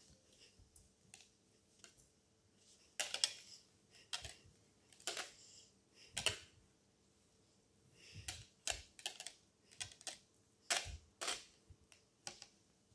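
A wire balloon whisk pressed into crumbly blue material in a plastic measuring jug, crushing it. About a dozen short, crisp crunches come at irregular intervals, some in quick clusters, with pauses between.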